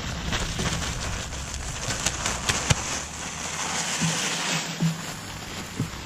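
Loose soil poured from a container pattering onto a garden bed: a steady hiss of falling earth, with a cluster of sharper ticks of clods landing about two to three seconds in.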